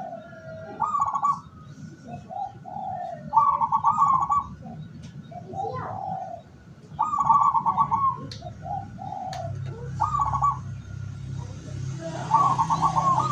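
Zebra dove (perkutut) cooing: a phrase of a few short low coos followed by a fast trilled coo, repeated about every three seconds, five times. A low steady hum comes in about two-thirds of the way through.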